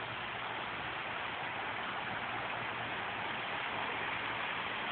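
Small waterfall rushing steadily, with road traffic in the background.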